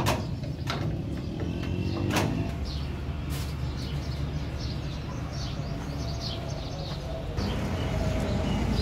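A few sharp metal clicks in the first few seconds as a hydraulic bottle jack is pumped under a truck's chassis, over a steady low hum. Birds chirp throughout.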